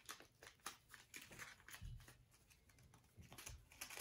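Faint, scattered small clicks and crinkles of hands handling a small paper seed packet, with a couple of soft low thumps in the middle.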